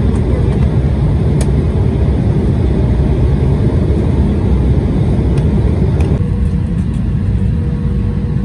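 Cabin noise of a regional jet heard from a window seat over the wing: a loud, steady rumble of engines and rushing air on low approach. About six seconds in the sound turns lower and duller, with a faint steady hum, as the jet is on the ground.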